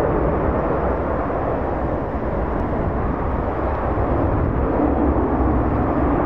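Steady, loud rumbling noise: strong wind buffeting the microphone, mixed with the distant jet engines of Airbus A321 airliners moving on the runway.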